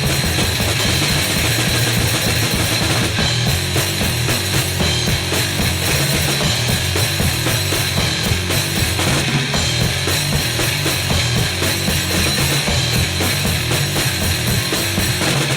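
Noisecore/grindnoise recording: a loud, dense wall of distorted noise over fast, pounding drums, with no let-up.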